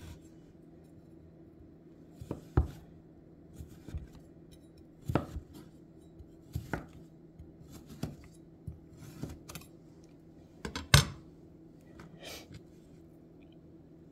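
Chef's knife slicing through a chilled potato candy roll and knocking on a wooden cutting board: a series of sharp taps at irregular spacing, roughly one a second, the loudest a little before the end.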